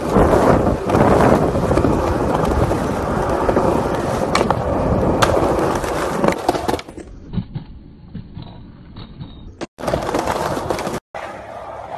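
Skateboard wheels rolling over concrete, with two sharp clacks of the board about four and five seconds in. From about seven seconds in the rolling is quieter and duller, with two brief dropouts, then picks up again.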